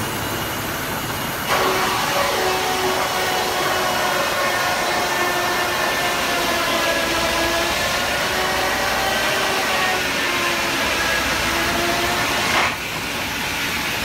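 Sawmill's boiler-mounted steam engine running: a steady hiss of steam with a wavering machine whine. It grows louder about a second and a half in and drops back shortly before the end.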